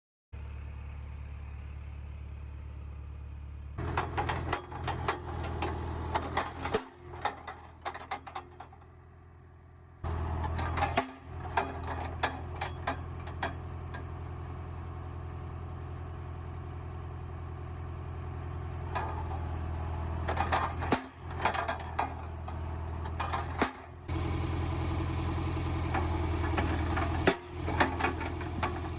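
A machine's engine running steadily at a low hum, with scattered clanks and knocks over it. The level jumps abruptly a few times where separate clips are joined.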